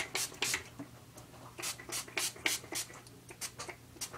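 Hairspray sprayed onto braided hair in a run of short hissing bursts, about a dozen, with a brief pause about a second in.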